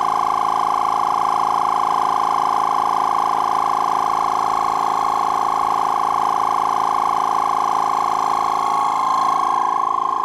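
Audew 12V DC twin-cylinder tire inflator running loudly and steadily, a continuous mechanical whine with many overtones. It is working against nearly 50 psi late in filling a large tire. The pitch wavers slightly near the end.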